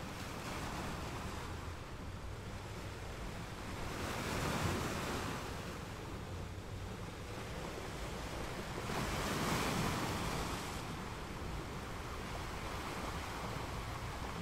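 Sea waves washing onto a rocky shore, with two louder surges about four and nine seconds in, over a low wind rumble on the microphone.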